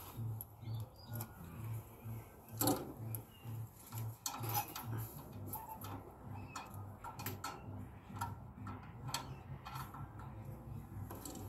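Makita 18-volt cordless drill-driver working screws in a heat pump's sheet-metal cabinet: scattered sharp clicks and knocks of the tool and bit against metal. Under them a low hum pulses about three times a second, pausing for a few seconds in the middle.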